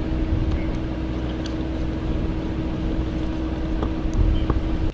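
An engine running steadily: a low rumble with a constant hum, a few faint clicks over it, cutting off suddenly at the end.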